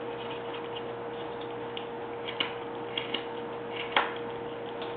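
Carving knife cutting into a wooden blank, taking off chips with a few short, sharp clicks; the strongest comes about four seconds in. A steady hum runs underneath.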